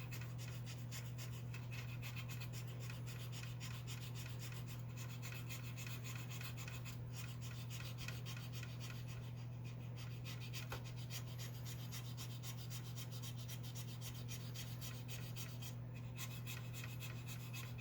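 Cotton swab with metal polish scrubbing tarnish off heavily tarnished metal contact pins: a fast, continuous rubbing, over a steady low hum.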